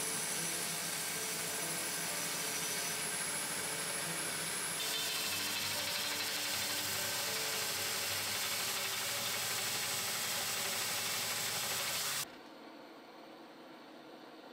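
Belt grinder running, grinding the steel of a sword blade to flatten a spot: a steady mechanical noise that turns brighter and a little louder about five seconds in, then cuts off suddenly near the end.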